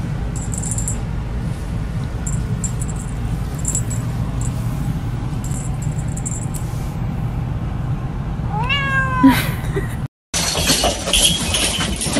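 A house cat meows once, a short call rising in pitch, about nine seconds in, over a steady low hum.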